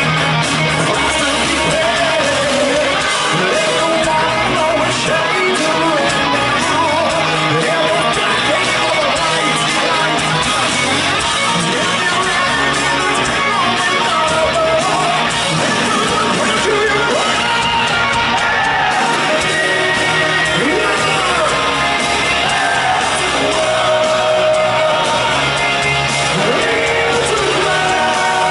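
Live heavy metal band performing: electric guitars, drums and a lead singer at the microphone, recorded from the crowd on a compact camera's built-in microphone.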